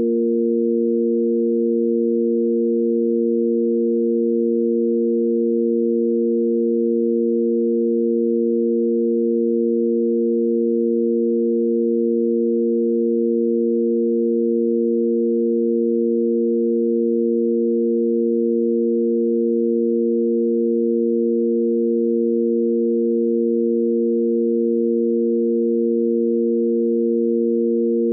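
Sine-wave tanpura drone in A#: three pure, steady sine tones sounding together on the root (A#), its fifth (F) and the octave above, held without any change.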